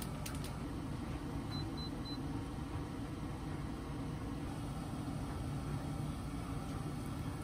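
An electronic kitchen appliance beeping three short, high beeps in quick succession, over a steady low hum.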